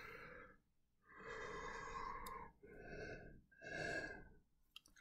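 A man yawning, faint and breathy: a long drawn breath, then two shorter breaths, the last one into hands cupped over his mouth and nose.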